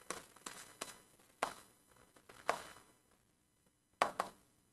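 Stylus tapping and touching the glass of an interactive display screen while writing: about eight faint, irregular light taps.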